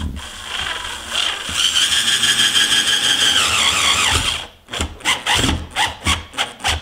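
Corded drill driver running a screw into soft hinoki wood: a steady motor whine for about four seconds that drops in pitch as it stops, followed by a quick run of short rattling clicks.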